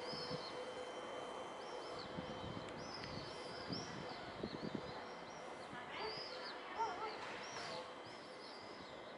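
Small birds chirping again and again, short high arched chirps, over a steady background hum.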